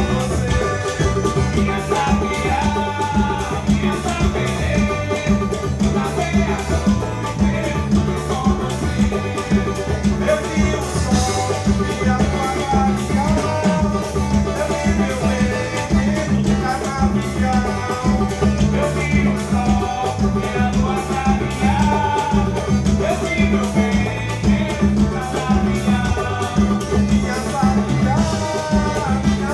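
Upbeat instrumental Latin-style music with a steady beat: bass, percussion and a melodic lead line.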